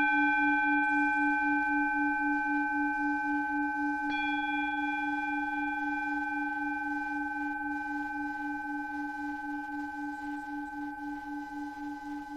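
A singing bowl struck and left ringing, its low hum wavering about three times a second and slowly fading, with a second, lighter strike about four seconds in.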